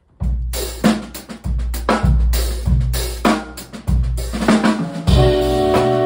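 A jazz combo starts a tune with a drum kit groove of snare, bass drum and hi-hat over deep bass notes. A horn section of saxophones, trumpet and trombone comes in with held chords about five seconds in.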